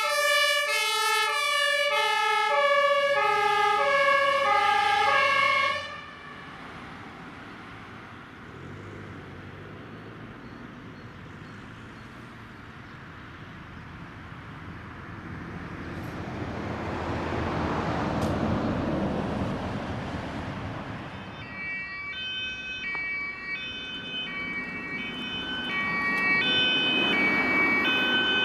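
Fire-service two-tone siren, the German high-low Martinshorn, alternating loudly and cutting off after about six seconds. A vehicle then drives past, its engine and tyre noise swelling and fading. Near the end an ambulance's two-tone siren starts, higher and faster-alternating, and grows louder.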